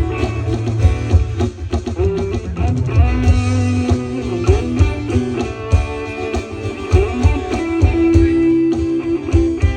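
Instrumental break of a Thai pop-rock song: guitar playing over bass and a steady drum beat, with no vocals.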